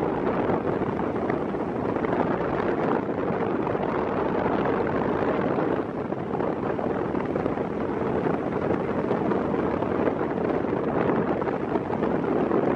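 Strong wind buffeting the microphone: a steady, continuous rush with no distinct engine note, dipping slightly about six seconds in.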